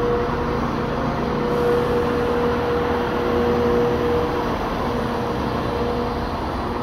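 Class 170 Turbostar diesel multiple unit standing at the platform with its engines idling: a steady rumbling hum with a held mid-pitched whine.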